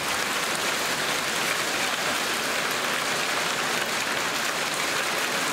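Small hailstones mixed with rain falling steadily onto a wet tiled patio and concrete yard, an even, dense hiss.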